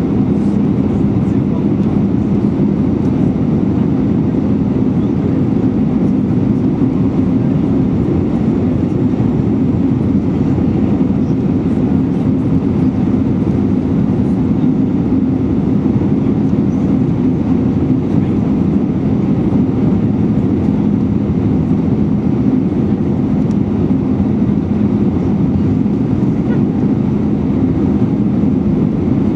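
Airbus A319 cabin noise heard from a window seat over the wing on approach: a steady rush of airflow and the CFM56-5B5 turbofan engines running, with a steady low hum in it.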